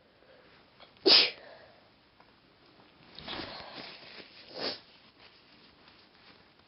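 A woman's induced sneeze: one sharp, loud burst about a second in. About two seconds later comes a longer stretch of noisy breathing that ends in a shorter burst.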